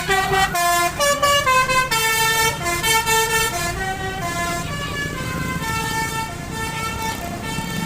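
Bus 'telolet' horn, a multi-note horn, playing a quick tune of stepped notes, busier and louder in the first few seconds, then slower held notes.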